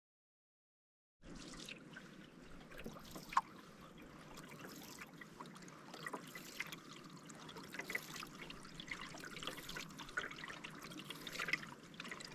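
Water trickling, with many small splashes and drips, starting suddenly about a second in.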